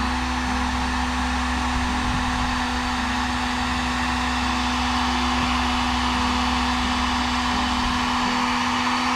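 Electric hot-air blower running steadily, with a constant motor hum over a rush of air, heating heat-shrink tubing over freshly soldered wires.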